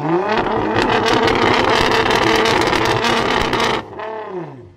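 Nissan GT-R R35's twin-turbo 3.8-litre V6, Litchfield-tuned to 800 hp and fitted with a Boost Logic exhaust, revved hard while the car stands still. It climbs right at the start, holds at high revs with rapid crackling for about three and a half seconds, then drops away in a falling sweep back toward idle near the end.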